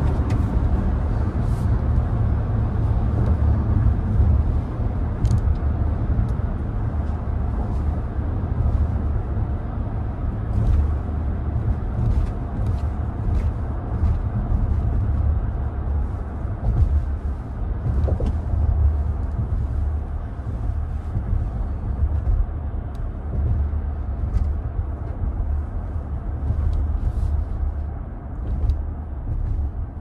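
Interior driving noise of a 2024 Toyota Grand Highlander on the move: a steady low road and tyre rumble with a light haze of wind, and a few faint ticks scattered through.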